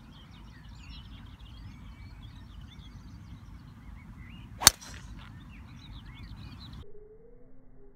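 A driver's clubhead striking a golf ball off a tee: one sharp crack about halfway through. Steady wind noise on the microphone and birdsong run underneath.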